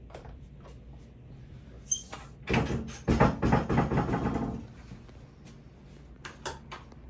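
A stainless-steel countertop ice cream maker being handled: sharp clicks, a brief high beep about two seconds in, then about two seconds of clattering as the lid and bowl are worked, and a couple more clicks near the end.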